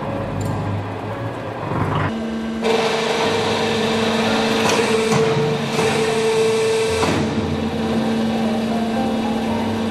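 Machinery of an automatic hydraulic clay brick press running steadily. About two seconds in the sound changes to a louder, steady motor whine over a dense mechanical clatter.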